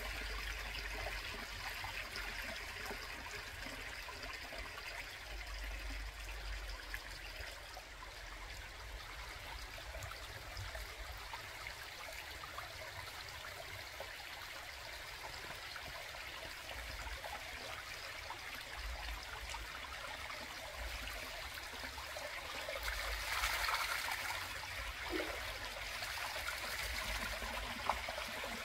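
Small stream of water trickling and splashing down over rocks in a small cascade, a steady rushing that swells louder for a moment near the end.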